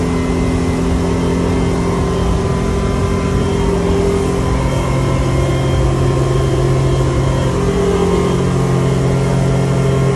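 Outboard motor running steadily with the boat underway at speed, over a rush of wind and water; the engine's drone shifts slightly a couple of times.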